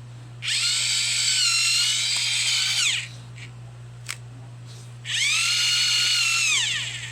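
Electric pencil sharpener running twice on a colored pencil, each run a high whine of about two seconds that sags a little under load and winds down at the end, with a short click between the runs. Really loud.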